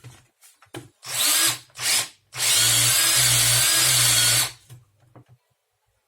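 Cordless drill motor, running on a homemade pack of salvaged laptop lithium cells, given two short bursts on the trigger and then run steadily for about two seconds with a whine before stopping suddenly.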